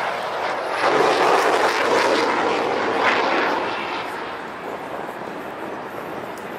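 MiG-21 LanceR fighter's Tumansky R-13-300 turbojet in afterburner, a loud rushing jet roar that swells about a second in. From about four seconds in it fades as the jet moves away.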